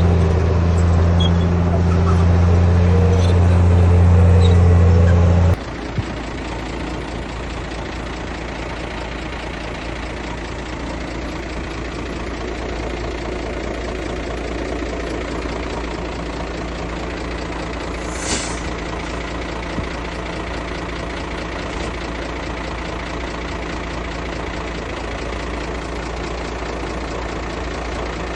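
Heavy diesel earthmoving engines running steadily. A loud, deep engine sound cuts off abruptly about five and a half seconds in, leaving a quieter steady engine sound with a short hiss about eighteen seconds in.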